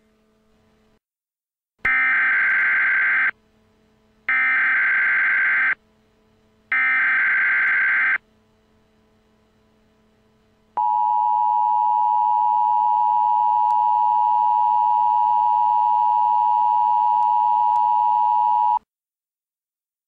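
Emergency Alert System SAME header: three short bursts of harsh digital data screech, each about a second and a half long. Then the EAS two-tone attention signal, a steady dual tone at 853 and 960 Hz, held about eight seconds before cutting off.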